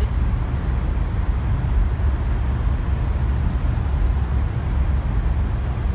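Steady road noise of a moving car heard from inside the cabin: a deep, even drone of tyres and engine with a fainter hiss above it, driving through a road tunnel.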